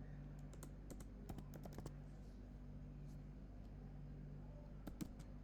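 Faint, irregular clicking of computer keyboard keys being typed, a few quick strokes close together near the end, over a steady low electrical hum.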